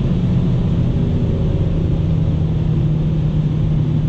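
Cabin noise inside a Mercedes-AMG CLA 45 slowing from about 240 to 200 km/h: a steady low drone from its turbocharged four-cylinder engine under heavy wind and road noise.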